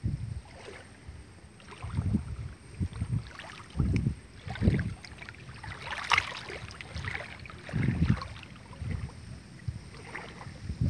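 Wind gusting on the microphone in irregular low buffets, with rustling of grass and leaves brushing close by, loudest about six seconds in.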